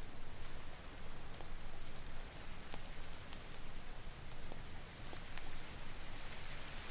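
Campfire crackling, with scattered sharp pops, over a steady wash of ocean surf; the surf's hiss swells up near the end as a wave comes in.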